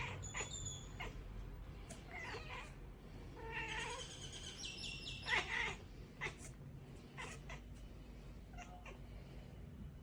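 A cat meowing a few times, with some light clicks in between.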